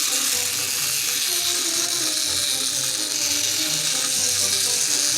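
Clockwork spring motor of a wind-up Mickey Mouse airplane toy running, a steady whirring buzz as it spins the propeller and drives the toy around in circles.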